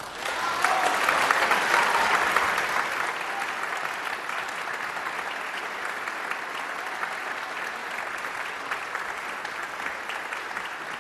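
Opera audience applauding at the end of an aria. The applause breaks out suddenly, is loudest over the first few seconds, then settles into steady clapping.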